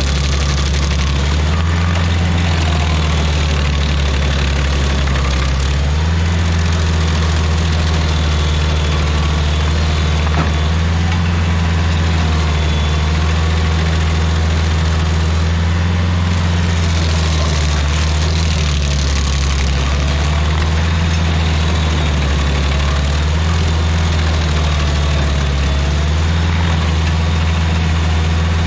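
Rayco RG50 stump grinder's engine running steadily and loud, its low pitch dipping slightly a few times.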